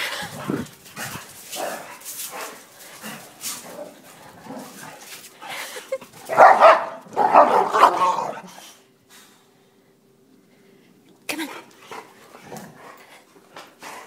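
Two boxer dogs play-fighting and barking, loudest in a stretch about six to eight seconds in, then a short lull before a few more sounds near the end.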